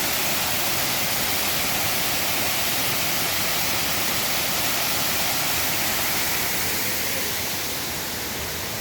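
Steady rush of a waterfall's cascading water, a little quieter near the end.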